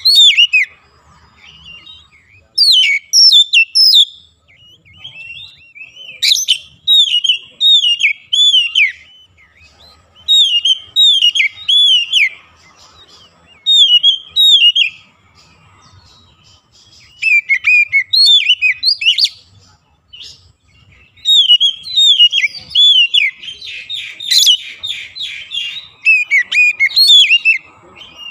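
Oriental magpie-robin singing: loud phrases of varied whistles and down-slurred notes, delivered in bursts with short pauses between them. A fast buzzy rattle comes about three-quarters of the way through.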